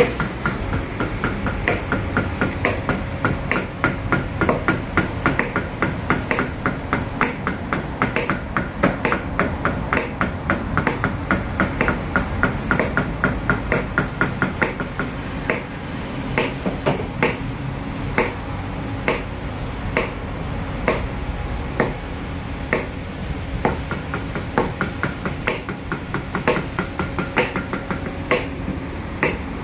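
A wooden mallet tapping a small carving chisel into wood in a quick, even run of light taps, about three a second, that becomes slower and more irregular about halfway through. A steady low background noise runs underneath.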